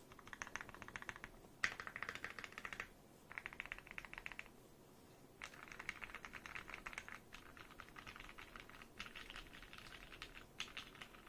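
Typing on a custom mechanical keyboard with lubed Gateron Giants switches in a polycarbonate plate: fast runs of keystrokes in bursts of a second or two with short pauses between, recorded through a phone microphone.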